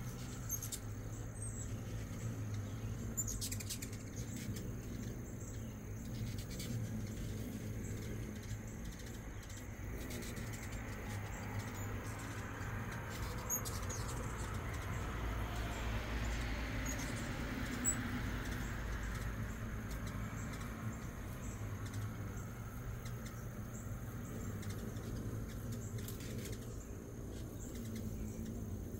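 Hummingbirds at a feeder: a few brief, high, squeaky chip notes and wing whirring over a steady low hum of background noise, which swells and fades about two-thirds of the way through.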